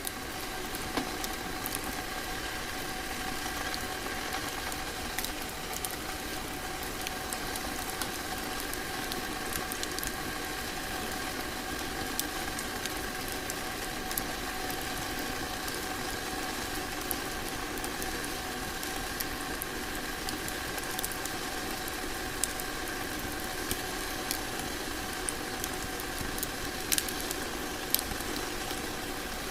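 Wood fire crackling in a fireplace: a steady hiss with scattered sharp pops, a few louder ones near the end.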